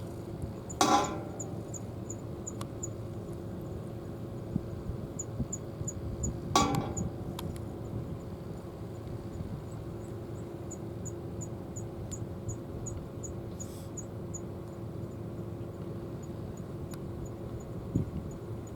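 Two sharp knocks with a short ringing tail, about a second in and again about six seconds later, over a steady low hum. Faint high ticks repeat about three times a second.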